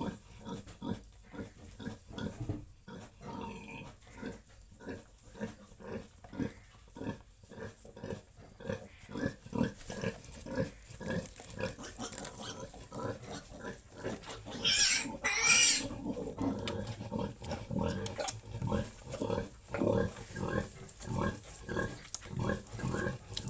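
Sow grunting in a steady rhythm, about two short grunts a second, the pattern of a sow nursing her piglets. A loud, high squeal cuts in for about a second and a half just past the middle.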